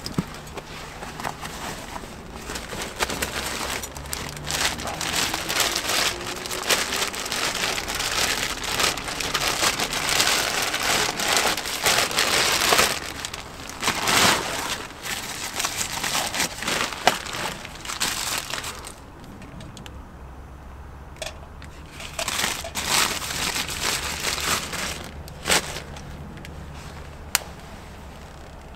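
Close rustling and crinkling with many sharp crackles, like material being handled and crumpled. It runs for about twenty seconds, then drops to a quieter background with a few scattered clicks.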